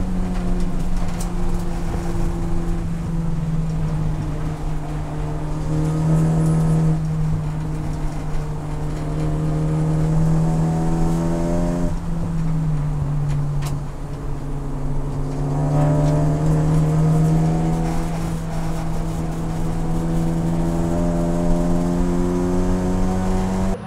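In-cabin sound of the Honda Civic Type R CNF-R race car's turbocharged 2.0-litre four-cylinder engine running hard at high revs on track. Its note stays fairly steady, drops briefly about twelve seconds in and climbs back a few seconds later.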